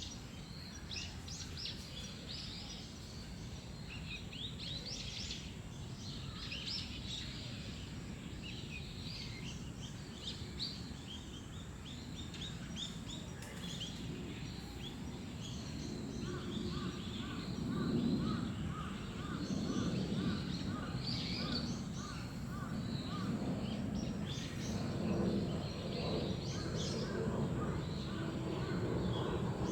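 Many small birds chirping and calling, dense short notes throughout, with one bird repeating a quick call about three times a second through the middle of the stretch. Under them runs a steady low rumble that grows louder in the second half.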